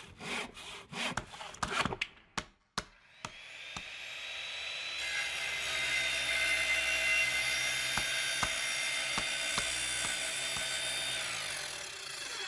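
Tool sound effects: a run of short, irregular scraping strokes. Then a power tool winds up, runs steadily for several seconds and winds down.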